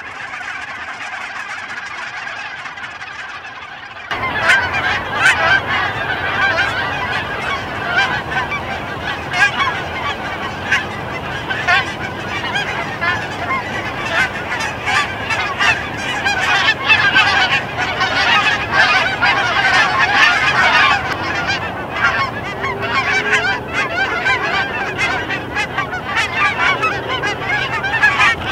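Large flock of Canada geese honking as they circle and land, many calls overlapping in a continuous clamour. It jumps suddenly louder about four seconds in.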